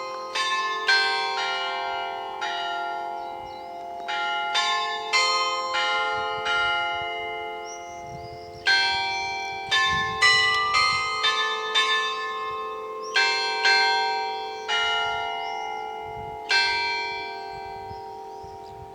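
Church bells of Visby Cathedral (St Mary's) ringing: several tuned bells struck at uneven intervals in a melodic pattern rather than a single repeated tone, each stroke ringing on over a steady low hum. The strokes stop about three-quarters of the way through and the last ones die away.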